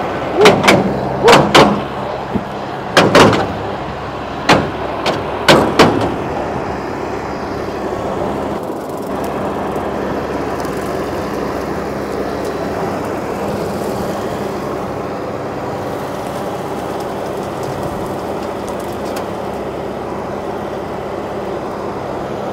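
John Deere diesel tractor running with a rotary cutter (bush hog) on the back. Several sharp, ringing clanks come in the first six seconds, then the engine and cutter settle into a steady drone.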